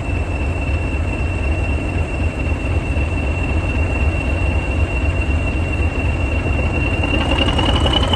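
Diesel locomotive running with a deep, steady rumble and a high-pitched whine held on one note, which rises in pitch near the end.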